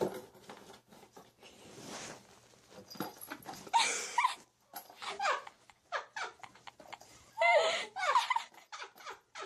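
Domestic cat meowing in several short, wavering calls, with its head stuck in a cardboard tissue box.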